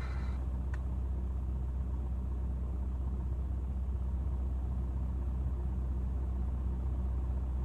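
A CB radio between transmissions: a steady low hum under faint static, with one short click about a second in.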